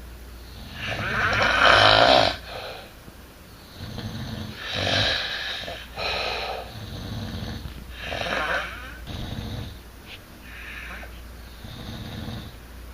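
Snoring: a run of rough snores, one every second or two, the first and loudest about a second in.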